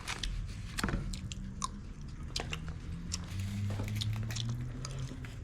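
A person chewing food close to the microphone, with small wet mouth clicks and smacks. A low steady hum sits underneath from about a second and a half in.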